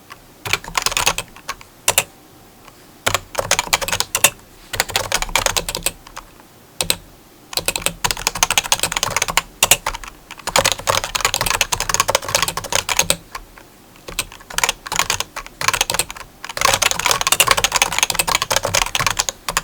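Typing on a keyboard: rapid runs of key clicks in bursts of one to three seconds, with short pauses between them.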